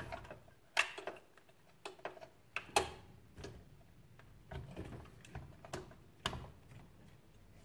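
Irregular sharp clicks and light knocks of a graphics card's metal bracket and plastic parts being worked into a PC case's expansion slot, a few of them louder than the rest.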